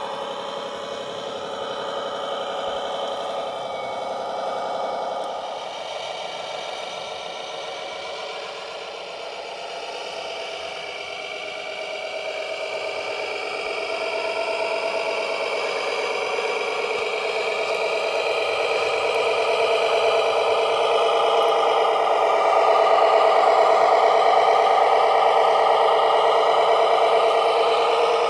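Radio-controlled Mercedes-Benz Arocs logging truck running, a steady engine-like drone with several held tones that shift slightly in pitch. It grows louder over the second half as the truck comes closer.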